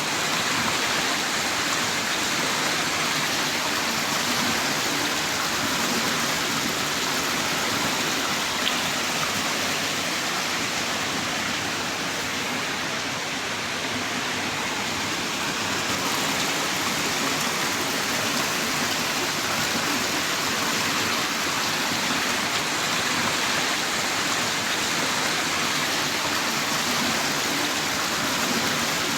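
Heavy rain in a steady downpour, an even hiss of rain falling without letup.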